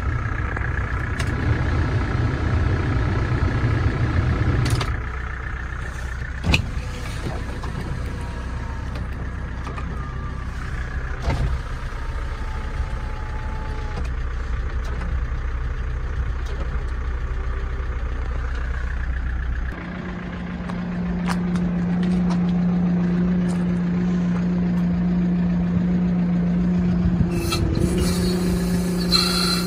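Kia Bongo III (K2700) 2.7-litre diesel truck engine running steadily at idle. About two-thirds of the way through, the sound changes to a stronger, steady, higher-pitched hum, and a brief high-pitched noise comes near the end.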